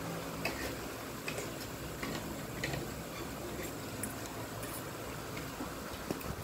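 Metal spoon and fork clinking lightly against a ceramic plate while scooping rice: a scattering of short, faint clicks.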